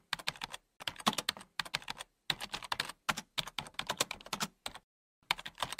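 Keyboard typing: quick irregular runs of key clicks with short pauses between them, the longest pause near the end.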